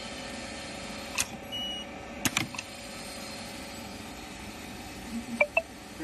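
High-frequency soldering machine cycling on a USB Type-C cable connector: sharp mechanical clicks about a second in and again twice a little after two seconds, a short high beep in between, and a pair of clicks near the end, over a steady hum.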